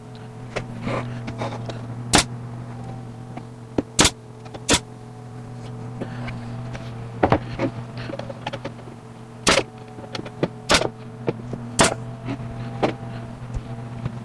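Brad nailer firing into pallet-wood boards: a string of sharp, separate cracks, about six loud shots and some quieter ones, spaced irregularly a second or more apart. A steady low hum runs underneath.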